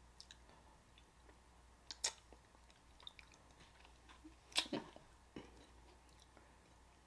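Faint close-miked mouth sounds: a few short lip smacks and tongue clicks over quiet room tone, the loudest pair about four and a half seconds in.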